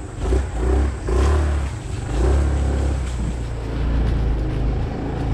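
Yamaha Zuma 125 scooter's single-cylinder four-stroke engine running under way, with heavy wind rumble on the handlebar-mounted camera's microphone. The sound swells and eases a few times as the throttle changes.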